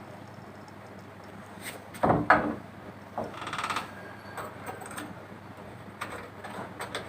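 Door-knob rose and knob hardware being handled and fitted onto a door: a couple of knocks about two seconds in, a short rattle a little later, and scattered light clicks.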